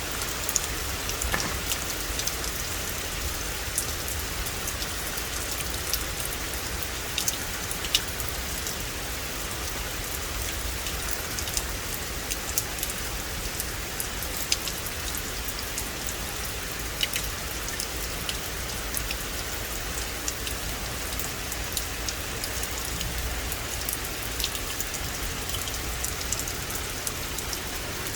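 Steady rain falling on forest foliage, a constant patter with scattered louder drops ticking close by.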